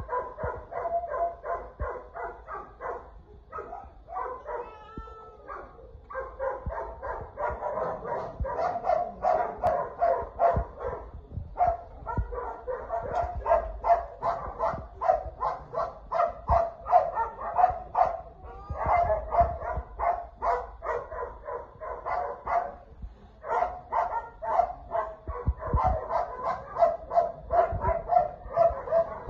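Dogs barking rapidly and without let-up, several barks a second, in long runs broken by brief pauses.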